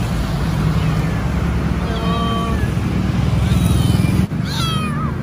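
Kitten meowing from inside a dumped sack, crying for help: a held meow about two seconds in and a falling one near the end. Steady road-traffic rumble runs underneath.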